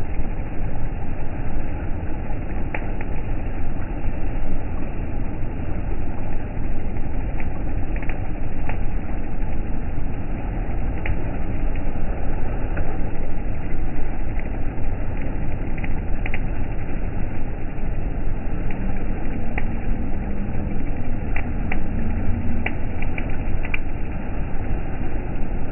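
Ferry engine running steadily, with the propeller wash churning the water alongside the steel hull and small splashes ticking now and then.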